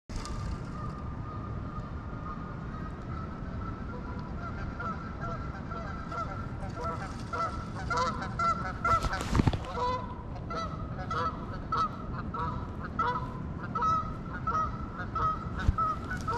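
A flock of geese honking over and over, the short calls coming thicker from about four seconds in, above a steady low rushing noise. There is a brief louder rush about nine seconds in.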